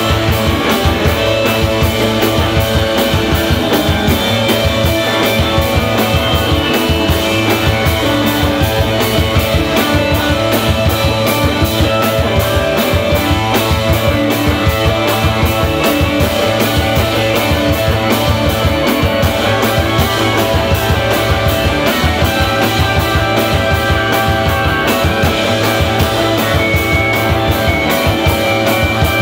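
Live rock band playing an instrumental piece on two electric guitars and a drum kit, with a steady drum beat under sustained guitar lines.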